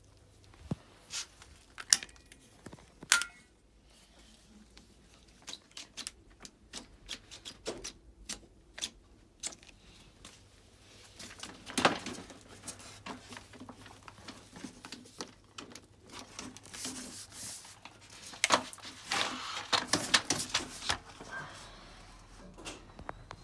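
A switched-off Dyson vacuum cleaner being handled and inspected: irregular clicks, knocks and rattles of its parts. A few louder knocks come about two and three seconds in, and a busier rattling stretch comes near the end.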